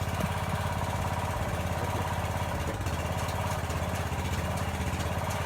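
Small engine of a hydraulic power unit running steadily, driving the pier jacks as they lift settled concrete steps back into place.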